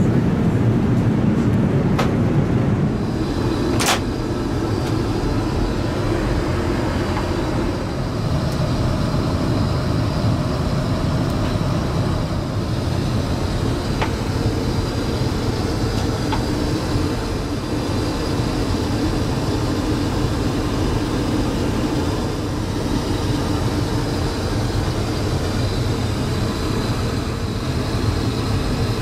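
Steady cabin noise of an Airbus A380 in flight: a low rumble of airflow and engines. A few sharp clicks come over it, and a faint high whine comes in a few seconds in.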